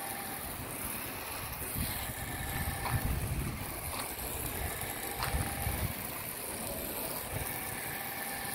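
Water spraying from a garden-hose spray wand onto glass solar panels, rinsing off soap: a steady hiss of spray, with a few louder low rumbles in the middle.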